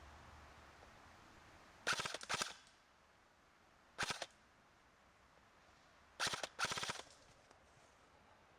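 Airsoft guns firing short bursts of rapid shots: one burst about two seconds in, a brief one about four seconds in, and a longer double burst a little past six seconds.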